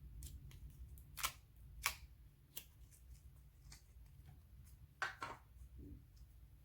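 Slime being squeezed and stretched by hand, giving a scatter of short sticky pops and clicks over a low background hum, with the sharpest pops about a second in, about two seconds in, and a double pop around five seconds in.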